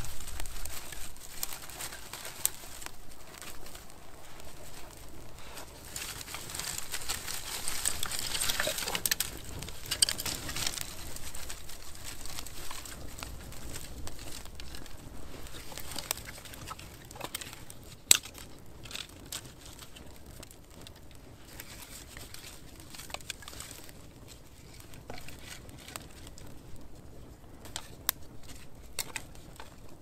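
An owl hooting in repeated low calls, over scattered light clicks and crackles with one sharper snap about 18 seconds in.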